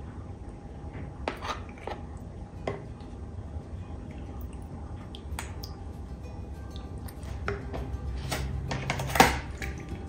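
Wooden spatula stirring raw pork chunks in marinade in a glass bowl, with wet squelches and scattered light knocks against the glass. A louder clatter about nine seconds in as the meat and marinade are tipped into a plastic container.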